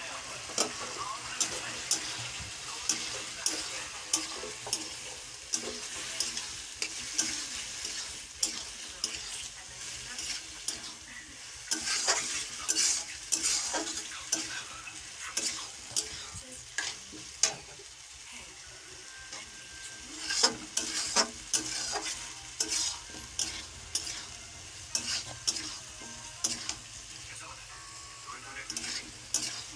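Chicken pieces and onions sizzling in sauce in a wok, while a metal spatula stirs them, scraping and knocking against the pan in irregular strokes.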